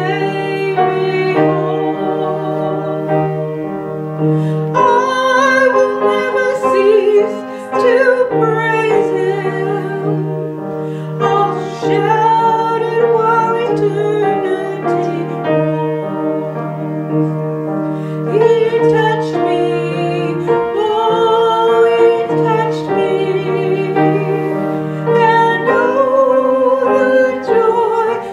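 Music: a song sung in long held notes with vibrato, over a sustained low keyboard accompaniment.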